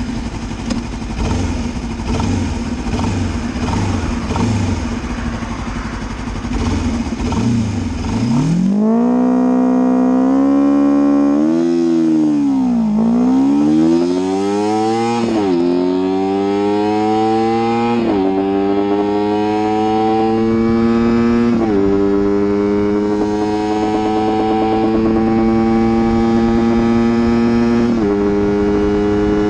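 Honda CBR250RR's parallel-twin engine through an Akrapovic exhaust, accelerating hard up through the gears. After some rougher, noisier running, the engine note dips and comes back around twelve seconds in, then climbs steadily in pitch and drops sharply at each of four upshifts.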